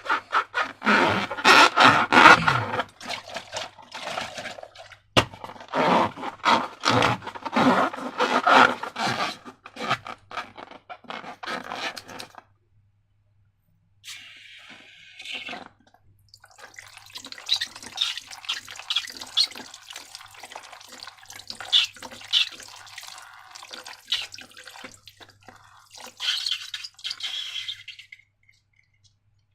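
Slime being squeezed and worked by hand, giving dense sticky crackling and clicking, with a short pause about halfway through and then finer, higher crackles.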